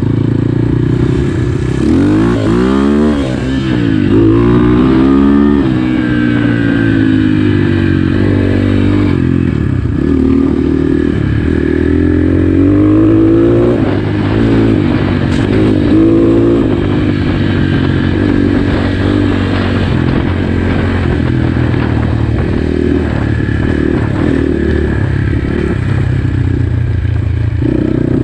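GPX FSE 250 E dual-sport motorcycle's engine running on a trail ride. Its pitch rises and falls again and again as the throttle is opened and closed, with the biggest swings in the first few seconds.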